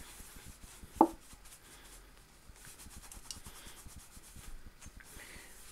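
Microfiber cloth wiping the inside of a non-stick frying pan: a faint, soft rubbing, with one brief louder sound about a second in.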